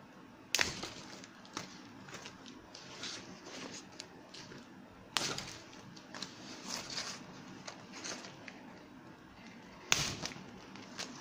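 Thin vinyl from a burst beach ball crinkling and tearing as it is handled and pulled apart, with three sudden sharp cracks about five seconds apart.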